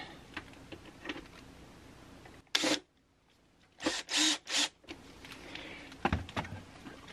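Cordless drill driving a Torx screw into a plywood mounting board in short bursts, once about two and a half seconds in and three times in quick succession around four seconds in, with a low thump near the end.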